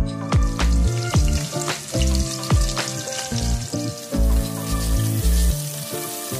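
Hot oil sizzling in a pan, first around whole cumin seeds and bay leaves, then around sliced onion, green chillies and garlic being stirred in, the sizzle growing louder about four seconds in. Background music with a steady beat plays throughout.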